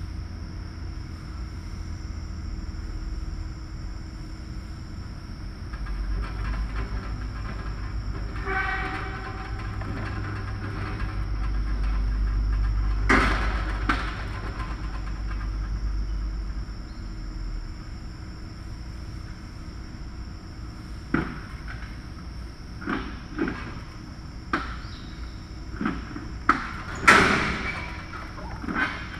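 Farrowing-pen ambience: a steady low mechanical rumble with a faint high steady whine, a short high-pitched pig call about nine seconds in, and a string of sharp knocks and clanks in the last third, the loudest near the end.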